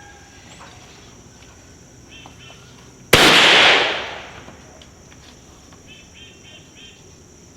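A single rifle shot about three seconds in, with a ringing tail that dies away over about a second.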